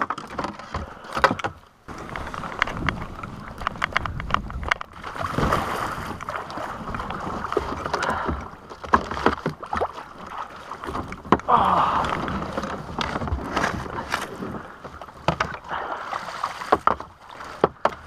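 A kayak being dragged over snow and launched onto the river: the hull scrapes and rustles, with irregular knocks and a paddle clunking against it.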